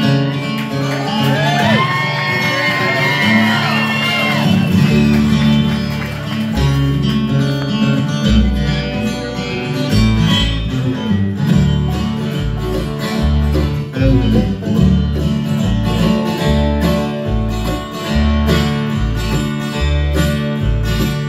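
Bluegrass band playing a song's instrumental introduction on acoustic guitar, fiddle, banjo and upright bass. Sliding fiddle notes lead in the first few seconds, and the upright bass comes in about four seconds in with a steady beat.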